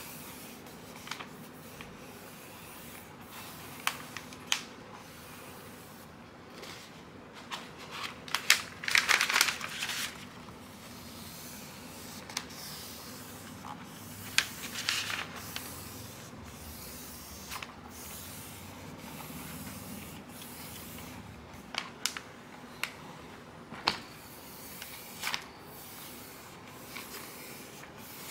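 Self-adhesive vinyl sheet and its backing paper being peeled apart and smoothed down by hand: scattered crinkling and rustling of the plastic, densest about a third of the way in, with a few sharp crackles near the end.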